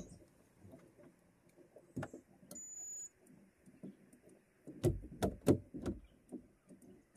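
Scattered clicks and knocks of someone handling an outboard motor that will not start, with no engine running; a short high tone sounds about two and a half seconds in, and a quick run of louder knocks comes about five seconds in.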